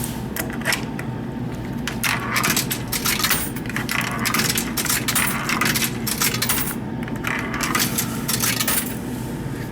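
Coins being fed one after another into a vending machine's coin slot, clinking and rattling through the coin mechanism in a string of sharp clicks over several seconds.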